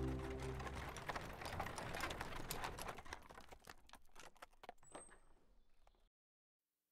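Horse-drawn carriage rattling and clattering, a rapid irregular run of clicks and knocks that fades away over about five seconds and then stops. The last notes of background music die out in the first second.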